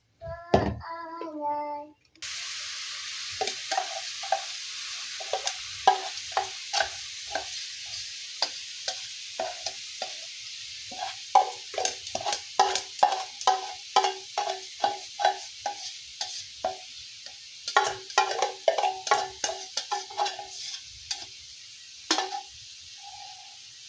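Chicken feet and spice paste sizzling in a frying pan, with a spatula stirring and knocking against the metal pan over and over, each knock ringing briefly, in runs of about two a second. A short snatch of singing is heard before the sizzling starts.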